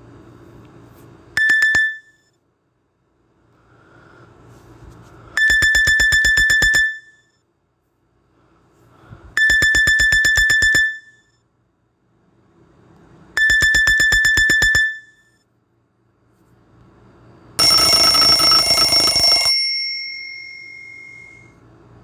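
Nokia E72 ringtones played through a Samsung Galaxy A51's phone speaker: a rapid pulsing electronic beep, about ten pulses a second in bursts of about a second and a half, repeating four times about every four seconds. Near the end a different, brighter ringing tone sounds for about two seconds and rings out.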